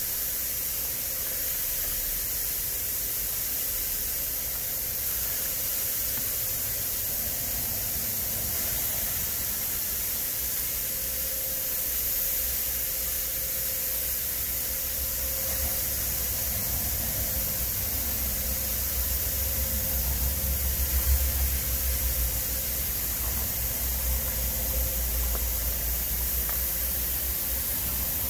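Pork skewers sizzling on a hot gas grill's cast-iron grate, a steady hiss. A low rumble swells about twenty seconds in.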